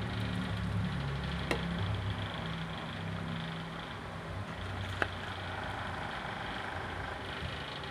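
A ladle stirring a pot of pork sinigang, knocking sharply against the pot twice, over a steady low hum.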